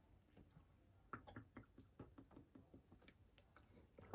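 Faint, irregular clicks, a few per second, from handling a plastic water bottle.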